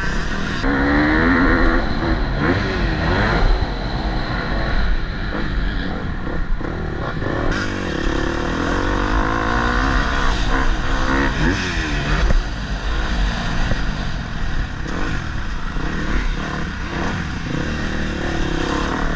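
Motocross bike engine revving up and down again and again as it is ridden round the track, its pitch rising and falling with each burst of throttle, over a steady low rumble.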